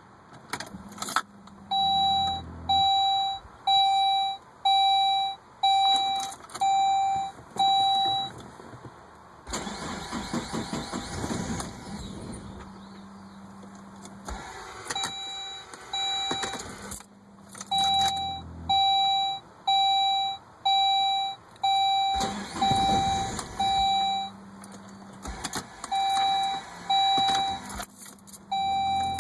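Saab 9-5 starter cranking the engine in two long attempts, about ten and twenty-two seconds in, while the car's warning chime beeps about once a second in between. This is a hard start after sitting, which the owner puts down to the fuel system losing pressure and suspects is the fuel pump check valves.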